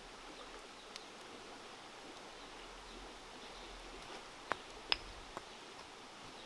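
Faint steady outdoor hiss, with a few sharp knocks in the second half, the loudest about five seconds in. The knocks are a wooden pestle striking a small mortar.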